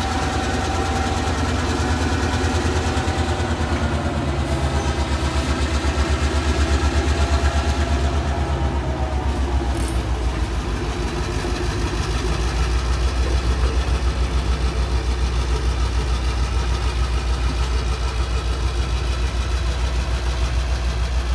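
Diesel freight locomotive's engine running with a steady low hum, its pitch easing down a little about five seconds in.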